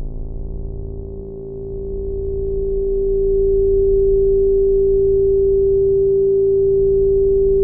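A single steady, pure electronic tone that swells in over about three seconds and then holds level, over a low droning hum that pulses slowly.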